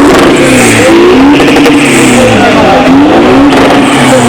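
Car engine revved again and again through its exhaust, the pitch rising and falling with each rev. It is very loud.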